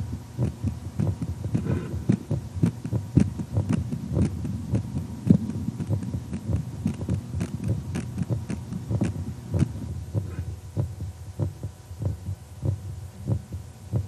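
Amplified heartbeat played back through a loudspeaker: a continuous run of low, somewhat uneven thumps, two or three a second.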